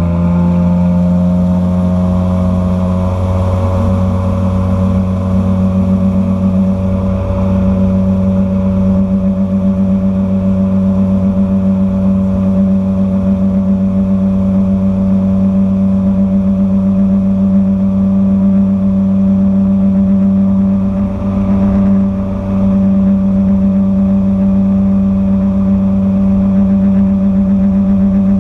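Outboard motor running the boat at speed. Its pitch rises briefly at the start, then holds a steady high note.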